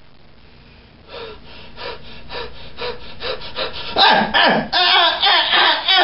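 A puppeteer's voice making rapid, rasping gasps in a stage death scene, about three a second. From about four seconds in they turn louder, with strained groans.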